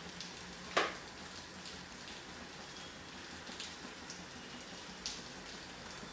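Cooking oil heating in a frying pan over a high gas flame: a faint hiss with scattered small ticks and pops, and one sharper crack about a second in.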